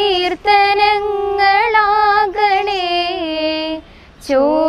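Girls singing a Malayalam prayer song, holding long notes, with a brief break for breath about four seconds in.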